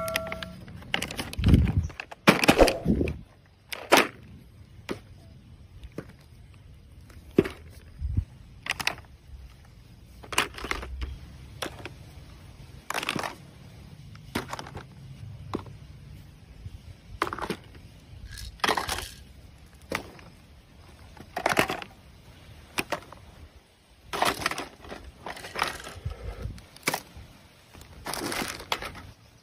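Hard plastic toy guns and their plastic blister packaging being handled and laid on a pile: irregular clacks and crinkles, one every second or two, with a louder clatter about two seconds in.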